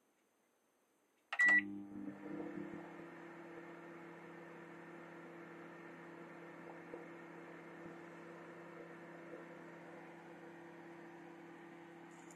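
A single short, high electronic beep about a second in, then a microwave oven starting up and running with a steady hum.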